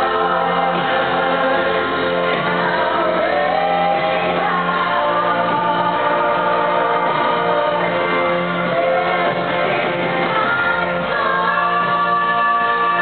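Live concert music: a woman singing a slow ballad with held, gliding notes over a band, heard from the audience in a large, echoing arena.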